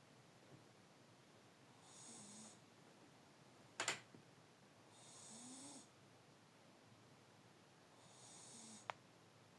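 A sleeping pet snoring quietly, one slow breath about every three seconds, each with a low rising snore and a hiss. There is a sharp click about four seconds in and a smaller one near the end.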